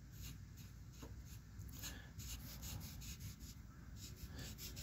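Faint, repeated short strokes of a paint marker's tip rubbing along a pickup's vent window post as it colours the post in.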